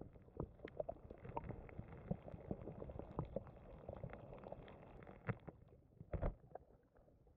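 Underwater sound picked up by a camera lying submerged in fresh water: a muffled hiss with many small crackles and clicks, and a dull knock about six seconds in.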